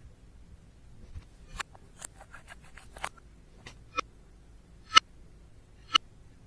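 Slime being worked by hand: a run of crackling clicks as air pockets pop, then three sharp pops about a second apart, the middle one the loudest.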